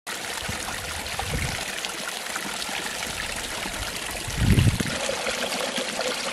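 Water pouring from a pipe spout and trickling down a shallow rocky stream, a steady splashing. A brief low rumble comes a little past four seconds in.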